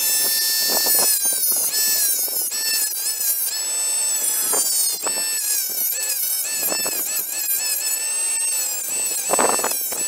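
Dremel rotary tool with a cut-off wheel running at high speed and cutting a white plastic piece from an old Moen faucet cartridge. It gives a high whine whose pitch dips and wavers again and again as the wheel bites into the plastic.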